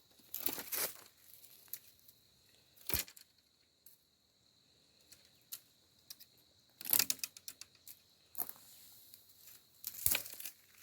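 Irregular crackles and rustles with a few sharp clicks, loudest about a second in, at three seconds, around seven seconds and near the end, over a faint steady high-pitched tone.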